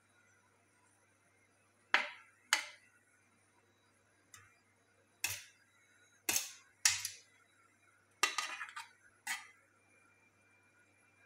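A metal slotted spoon knocking and clinking against a stainless steel serving tray while scooping biryani: about eight sharp clanks, spaced irregularly, some in quick pairs.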